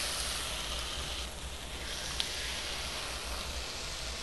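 Mojo-marinated chicken breasts sizzling on a hot George Foreman contact grill: a steady hiss that eases slightly after about a second, with one small click about two seconds in.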